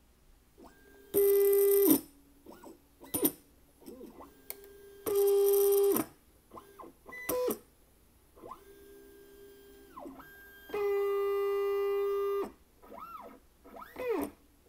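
Handibot CNC router's stepper motors driving its axes through the homing routine. The sound comes as several separate moves, each a pitched whine a second or two long that sweeps up at the start, holds steady and sweeps down at the end, with shorter chirps in between.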